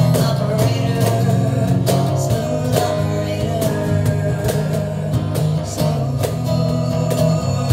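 Live acoustic duo: strummed acoustic guitar with steady hand-played cajón hits, and a woman's voice singing at times.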